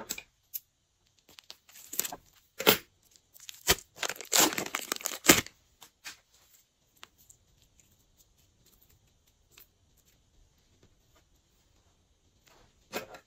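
Plastic piping bags filled with slime crinkling and crackling as they are handled and squeezed. There are short bursts around two seconds in and a longer run of crackling from about three and a half to five seconds. After that it is mostly quiet, with another burst of crinkling near the end.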